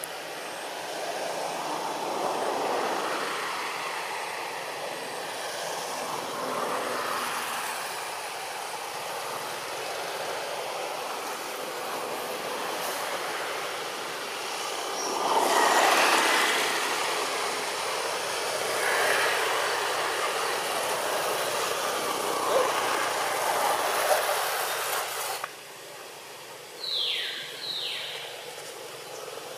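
A steady rushing background noise that rises and falls, swelling loudest about fifteen seconds in. Near the end, two short squeals fall quickly in pitch, cries of a young long-tailed macaque.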